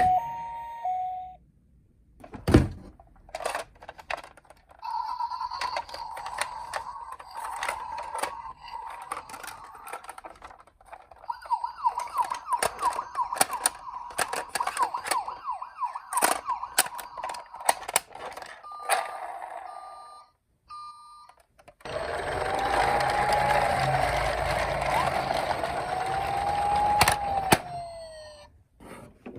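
A run of toy ambulance electronic sirens. A two-tone hi-lo ends about a second in. After a pause comes a steady tone that turns into a fast warble, then a few short beeps, and near the end a slow rising-and-falling wail. Many sharp clicks run through it.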